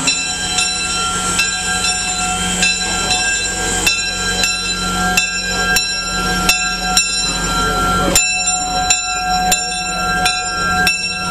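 Steam locomotive pulling slowly out of a station at close range. A steady high ringing tone runs under a sharp, regular knock that comes a little less than twice a second.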